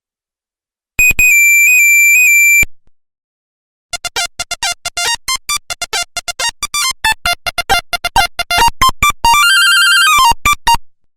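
Nokia 1100 monophonic ringtones: a held, high warbling beep tone lasting under two seconds, then after a short pause a fast melody of short beeps jumping between pitches for about seven seconds, with one longer warbling note near the end.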